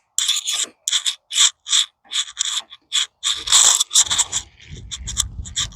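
Bicycle freewheel ratcheting in short clicking runs, about three a second, as the bike starts off on a test ride, with some low rumble of movement in the second half.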